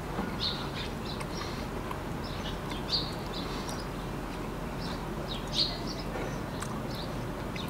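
Small birds chirping in short, scattered calls over a steady background hiss, with a few louder chirps about three seconds in and again past the middle.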